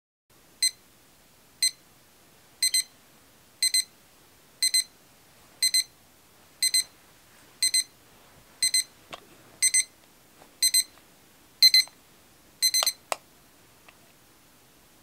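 Electronic alarm beeping about once a second, single beeps at first and then double beeps, until it is switched off with a click about thirteen seconds in.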